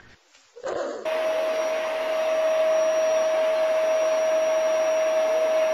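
A household appliance's electric fan motor running steadily: a constant whine over a rushing hiss, starting about a second in.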